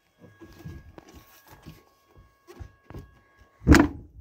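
Faint rustling and light knocks over a faint, steady high tone, then a single loud, heavy thump near the end as the 1994 GMC Sierra's door is shut.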